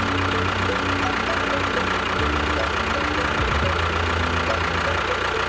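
Engine idling with a steady low chugging beat. Its note shifts slightly a couple of times.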